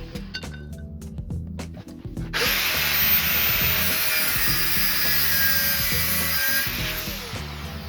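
A power tool's motor spins up about two and a half seconds in, runs for about four seconds working on material with a loud grinding noise, then spins down. It is preceded by a few sharp clicks and taps.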